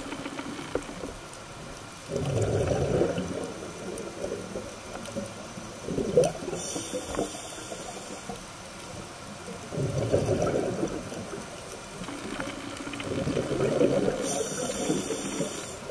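A scuba diver breathing through a regulator underwater: rumbling bursts of exhaled bubbles about every four seconds, with a high hiss of inhaling a third of the way in and near the end.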